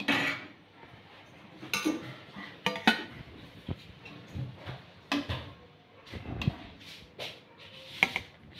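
Slotted steel spoon knocking and scraping against a steel kadhai and a steel plate while lifting boiled dumplings out of the water: a series of separate metallic clinks and knocks.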